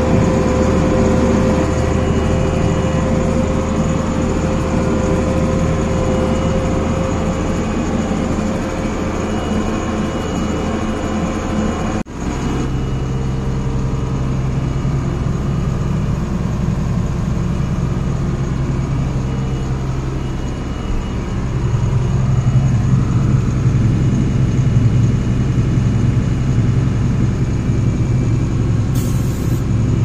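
Farm tractor engine running steadily, heard from inside the cab. It breaks off abruptly about twelve seconds in, then resumes with a different low tone that grows louder about twenty-one seconds in.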